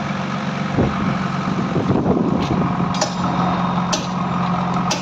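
An engine running steadily at a low idle, with a few sharp clicks or knocks in the second half.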